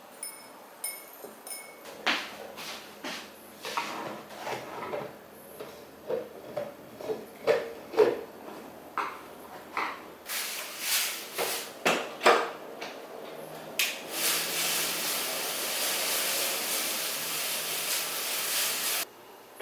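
A series of irregular knocks and clinks from tools worked at a metalsmith's bench, followed by a steady hiss lasting about five seconds that cuts off suddenly near the end.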